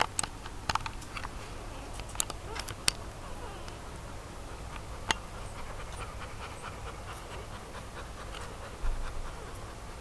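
Three-day-old puppy suckling hard: short wet sucking clicks, several close together in the first three seconds and another about five seconds in, with the puppy's breathing.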